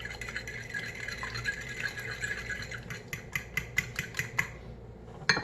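A fork whisking eggs in a bowl: quick, light clicks and scrapes of the fork against the bowl. The strokes turn into a fast, even clicking, about seven a second, in the second half, then stop about a second before the end.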